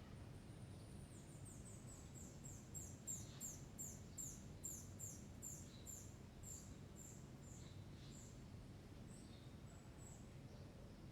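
Faint bird song: a run of short, high, downward-slurred chirps, two or three a second, for about six seconds, over a low steady room hum.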